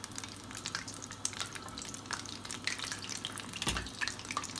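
Batter-coated fish pieces deep-frying in hot oil, a steady sizzle full of small crackles and pops. A single soft low thump comes a little before the end.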